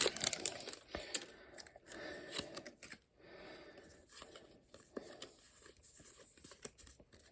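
Foil wrapper of a Pokémon card booster pack being torn open and crinkled, loudest about the first second, followed by faint rustling and scattered light clicks.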